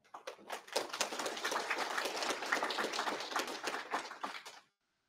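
Audience applauding, many hands clapping at once, which stops suddenly about four and a half seconds in.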